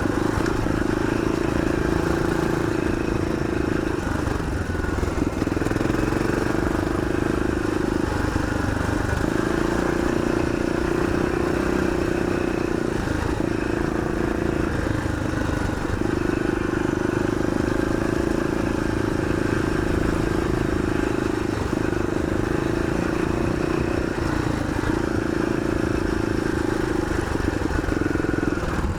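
Yamaha XT500's single-cylinder four-stroke engine running under way, a steady engine note with brief dips every few seconds.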